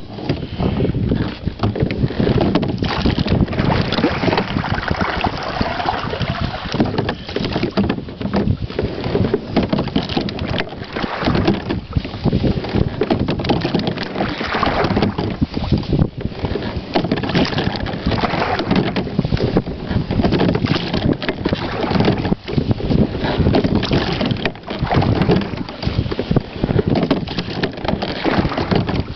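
Wind buffeting the microphone of a slide-seat rowboat under way, a loud, constantly fluttering rush, with water noise along the hull beneath it.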